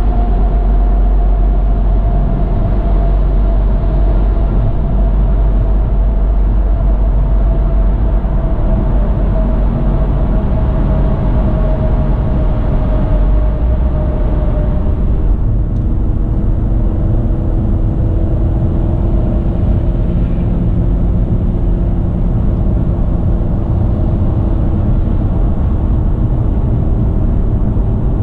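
Car driving at highway speed, heard from inside the cabin: steady tyre and engine rumble with a faint hum. The sound is fuller and brighter while in the road tunnel beside tractor-trailers, and thins out about halfway through as the car leaves the tunnel.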